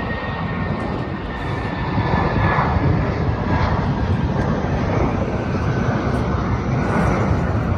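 Jet engines of a twin-engine Airbus A320-family airliner at takeoff power as it climbs away: a steady, loud rushing noise with a thin whistling tone that slowly falls in pitch over the first couple of seconds, growing a little louder about two seconds in.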